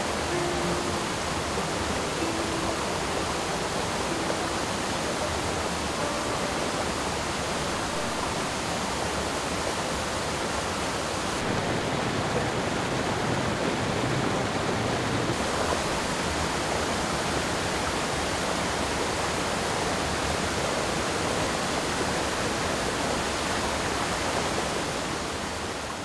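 Steady rush of a waterfall and creek cascading over rock. Its balance shifts for a few seconds about halfway through.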